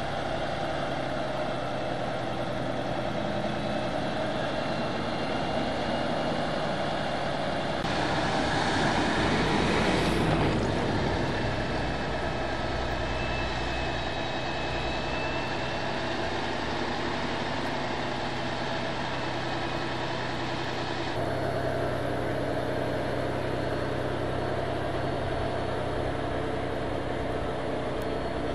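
Heavy truck engines running with a steady drone. About eight seconds in the noise swells for a couple of seconds, then drops back, and the sound changes abruptly about twenty-one seconds in.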